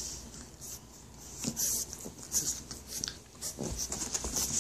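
French bulldog puppy tussling with a stuffed plush toy: irregular scratchy rubbing of paws and fabric on carpet, louder from about a second and a half in, with a few dull knocks.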